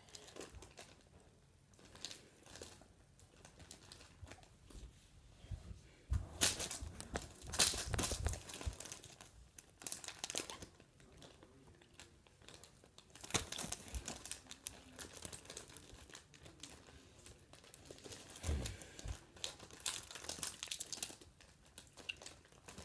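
Plastic wrapper of a SweeTarts Ropes candy pack crinkling in several spells with pauses between as it is handled and pulled at, without tearing open. A low bump of handling comes near the end.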